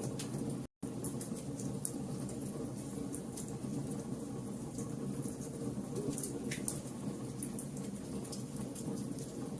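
Fire crackling, with frequent sharp pops over a steady low rumble; the sound drops out for a split second under a second in.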